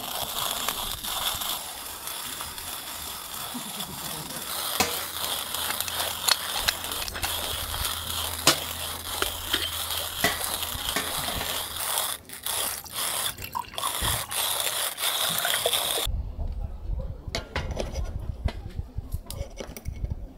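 Hand coffee grinder, a Holzklotz Epic, cranked steadily as it grinds coffee beans, a dense crunchy grinding with clicks that stops abruptly about 16 seconds in.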